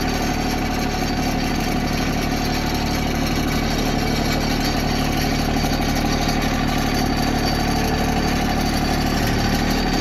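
Compact tractor's engine running steadily, heard from the driver's seat, while its front loader tips out a bucket of compost.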